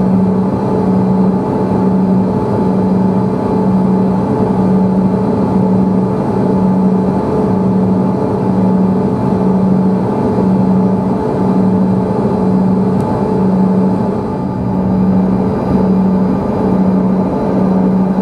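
Cabin noise inside a jet airliner while taxiing: its engines running steadily, with a low hum that swells and fades about once a second over a constant rushing noise.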